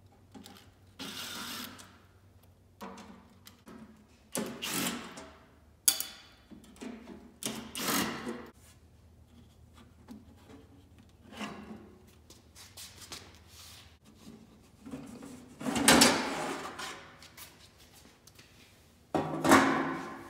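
Several short runs of a cordless drill-driver taking the screws out of a plasma cutter's sheet-metal side cover, mixed with knocks and rattles as the cover is handled and taken off.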